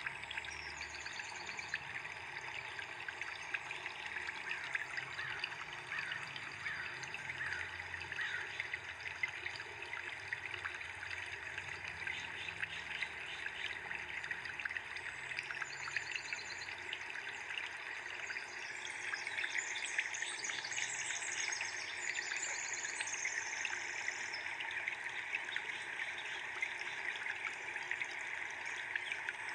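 Steady trickling, splashing water with birds chirping in short spells now and then, busiest a little past the middle.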